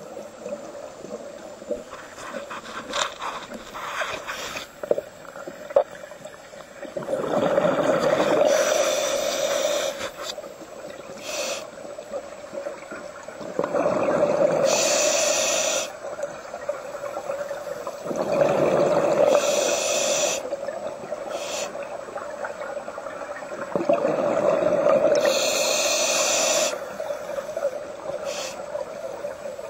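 Scuba diver breathing through a regulator underwater: about four slow breaths, roughly five to six seconds apart, each a rush of exhaled bubbles and a hiss of air, over a steady hum.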